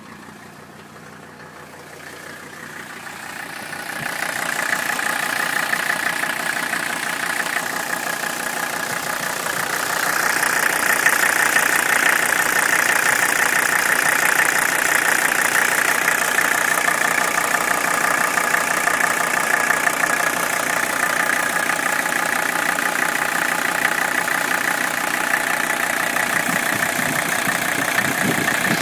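Mercedes-Benz 300SD's five-cylinder turbodiesel idling with a steady diesel clatter. It gets louder over the first few seconds and again about ten seconds in. This is the rough, shaking warm idle that the owner means to cure with rebuilt injector nozzles.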